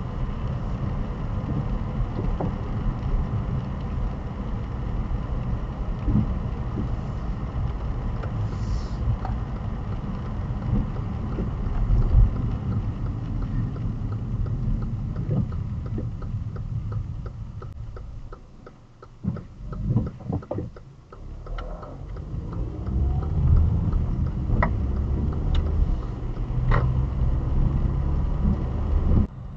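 Car driving on a wet road, heard from inside the cabin: a steady low rumble of tyre and road noise. About two-thirds of the way through it drops away for a few seconds as the car slows, with a run of light ticks, then builds again as the car picks up speed.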